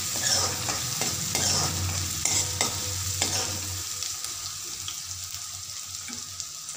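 A metal ladle scrapes and clicks against a metal kadai while stirring chopped green garlic and ginger-chilli paste that sizzle in hot oil. The scraping stops a little past halfway, leaving a quieter steady sizzle.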